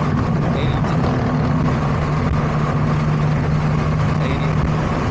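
Inside a Toyota GR86's cabin at about 85 mph with the windows down: steady wind rush over the constant drone of its flat-four engine through an HKS Spec-L exhaust.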